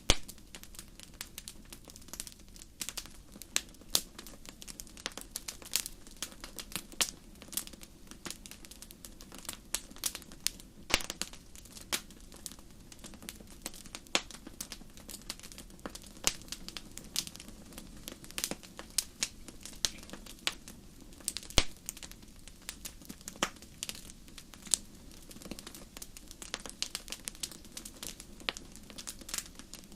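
Wood campfire burning, with irregular sharp crackles and pops, a few a second and some much louder, over a low steady rush of the flames.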